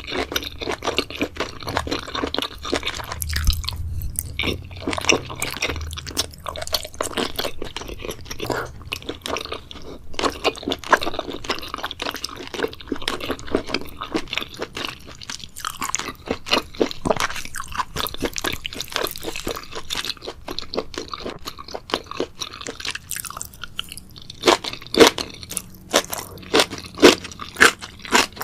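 Close-miked chewing of seaweed: continuous wet crunching and crackling bites, growing louder and sharper near the end.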